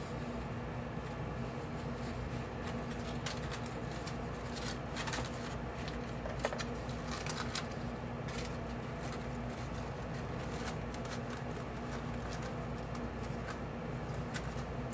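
Aluminum foil crinkling and toilet paper rustling in irregular small crackles as tissue is stuffed into a thin foil shell and pressed into shape, over a steady low hum.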